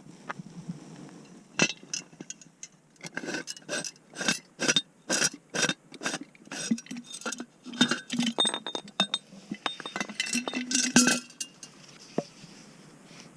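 Hiking boots crunching and clinking over frozen ground, a quick run of sharp steps about three a second from a few seconds in until near the end.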